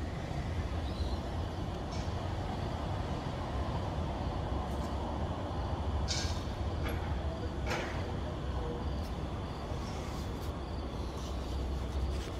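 Lorry engine idling with a steady low hum while stacked plastic crates and trolleys clatter and knock now and then. The loudest knocks come about six and eight seconds in.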